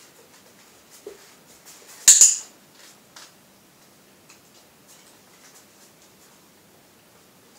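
A loud, sharp double click about two seconds in, with a few faint ticks of a border collie puppy's claws on a tiled floor.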